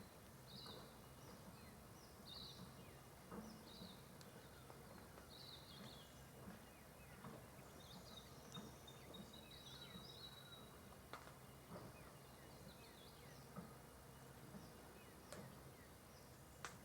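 Faint bush ambience: small chirping calls, bird or insect, repeating about once a second, with a brief thin whistle partway through and a few faint sharp clicks in the second half.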